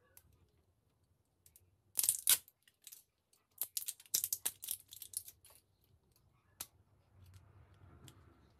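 Plastic cap and seal of a fish sauce bottle being twisted and pried open: a series of sharp plastic clicks and crackles, the loudest pair about two seconds in and a quick run of them a second later.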